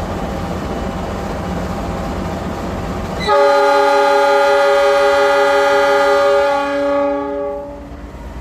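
A steady low rumble of a train, then about three seconds in a train horn sounds a chord of several tones for about four and a half seconds before fading out.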